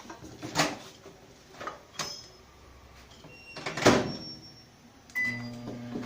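Clicks and clunks of a microwave oven door being handled and shut, the loudest about four seconds in. A little after five seconds a short beep sounds and the microwave starts running with a steady hum.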